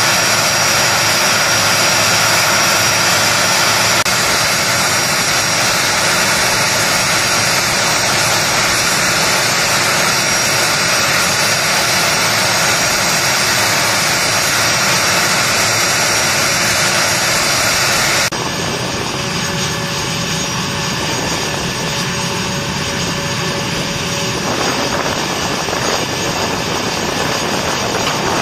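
Steady jet turbine noise on an airfield flight line: a continuous rush with a thin high whine running over it. About eighteen seconds in it changes abruptly to a slightly quieter, duller version of the same noise.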